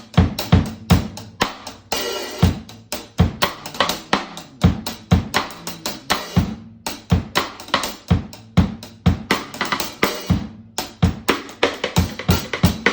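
A drum-kit groove with the snare played as a cross stick, the stick's back end laid across the rim and clicked against it, over kick drum and cymbal. The hits are steady, with a cymbal wash about two seconds in. The cross stick has a rich sound, played with a loose grip.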